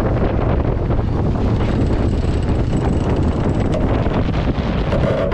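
Wind buffeting the microphone aboard an Extreme 40 racing catamaran sailing at speed, a loud steady rushing heaviest in the low end.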